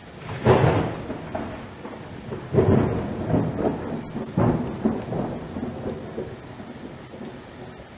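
Thunderclaps over steady rain: three loud crashes about two seconds apart, each dying away in a rumble, with the rain hiss going on after them.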